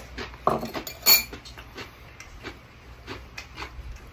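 Metal spoon scraping and clinking in a ceramic rice bowl, with one sharp ringing clink about a second in, followed by faint small clicks and taps.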